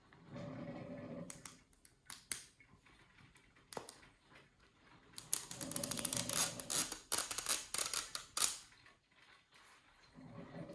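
Plastic toy packaging being handled: a few sharp clicks, then several seconds of dense crinkling and crackling of plastic wrap a little past the middle.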